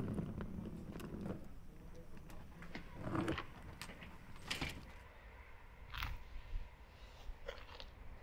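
An old public phone booth's door and fittings being handled: a low rumble that dies away in the first second, then about half a dozen sharp clicks and knocks spread through the rest, the loudest about halfway.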